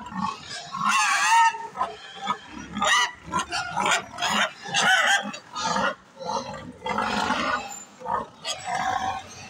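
Pigs squealing and grunting in a rapid string of loud calls, a long wavering squeal about a second in being the loudest.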